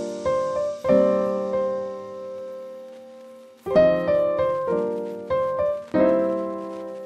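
Background piano music. Chords are struck about every half second, and one chord is held and fades for nearly three seconds before the playing picks up again.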